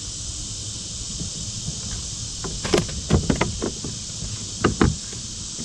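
A few short knocks and clunks on a kayak as a crappie is put into the fish box, in a cluster about two and a half to three and a half seconds in and a pair near five seconds. Over a steady high hiss of insects.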